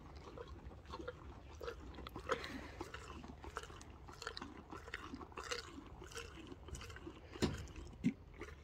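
A donkey chewing close up: a run of irregular wet crunches and smacks from its mouth, with two louder knocks near the end.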